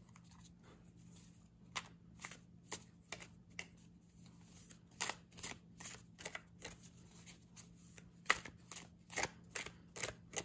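A deck of thin, paper-like tarot cards being shuffled by hand, the two halves worked into each other. It makes a string of irregular soft card snaps that come faster in the second half.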